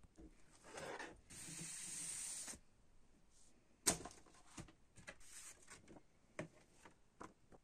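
Cardboard record sleeve and paper insert being handled: a rustling, then about a second of steady papery sliding, a sharp tap about four seconds in (the loudest sound), and then scattered light rustles and taps as a printed insert card is pulled out.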